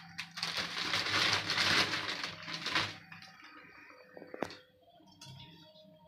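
Thin plastic bag crinkling and rustling as crushed vermicelli is shaken out of it, for about the first three seconds. After a quieter moment comes a single light knock with a brief ring.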